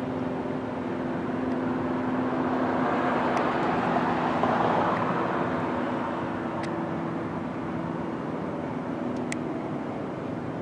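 Downtown street traffic: a vehicle passes, its noise swelling to a peak about halfway and then fading, over the steady drone of an idling engine.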